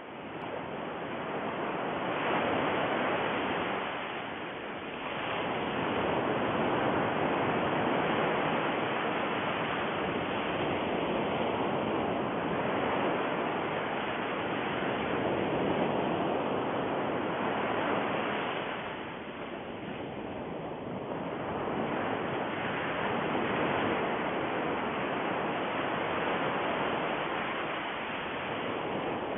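Steady rushing noise like breaking surf, swelling and easing slowly, with softer dips about four seconds in and again around twenty seconds in.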